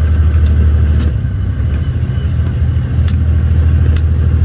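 Logging truck's diesel engine running with a steady low drone heard from inside the cab, easing briefly about a second in, with four sharp clicks or knocks spread through it.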